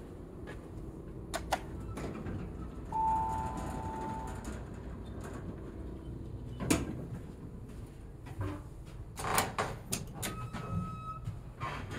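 Passenger elevator arriving and loading: a steady chime tone lasting about a second and a half around three seconds in, then the sliding doors, clicks and knocks of feet and buttons, and a second, shorter tone just after ten seconds as a cab button is pressed. A steady low hum from the machinery runs underneath.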